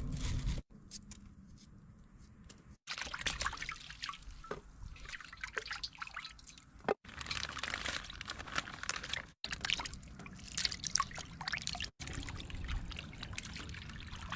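Water pouring and trickling from a bucket, splashing as a pot is rinsed, in several short takes that cut off abruptly.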